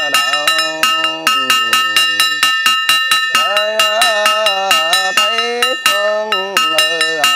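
A small metal bell struck rapidly and evenly, about five strokes a second, keeps a ringing tone going. Under it a monk chants in a voice whose pitch rises and falls.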